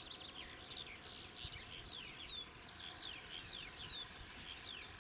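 Several songbirds singing at once: many short high chirps and falling whistles overlapping one another, over a faint steady background hiss.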